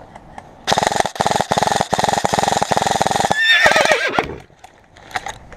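Airsoft gun firing long rapid full-auto bursts for about two and a half seconds, then a brief wavering high-pitched cry near the end.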